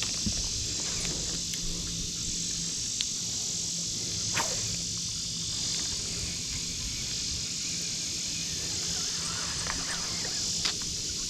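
Steady high-pitched drone of insects, with a low steady hum underneath and a few faint clicks.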